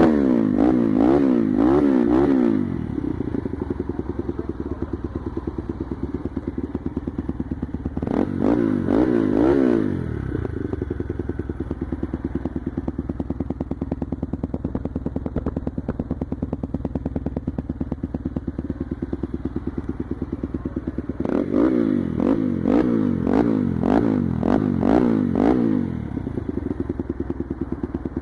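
AKT TT Adventour 250 single-cylinder motorcycle engine running through an aftermarket Kimoto Superbike muffler with a long FMF pipe. It idles with a steady pulsing beat, broken three times by bouts of quick throttle blips: at the start, about eight seconds in, and for several seconds after about twenty-one seconds.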